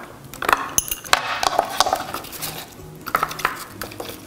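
Garlic cloves and apple pieces dropped by hand into an aluminum baking sheet full of sliced citrus, onion and carrots: irregular soft knocks and clatters of produce against produce and the metal pan.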